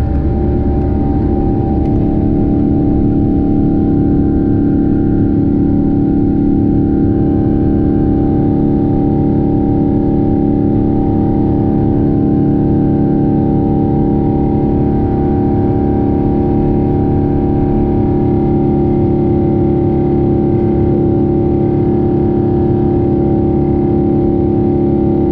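Boeing 777-200's GE90 turbofan engines at takeoff thrust, heard from the cabin beside the wing: a loud steady drone with a constant whine over it. The rumble of the wheels on the runway dies away about a second in as the aircraft lifts off and climbs out.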